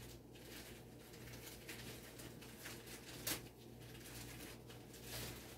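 Quiet room tone with a faint steady low hum, and one short click a little past three seconds in.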